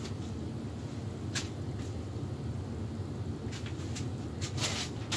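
A few light knocks and clicks of metal pipe fittings being handled and set down, over a steady low hum.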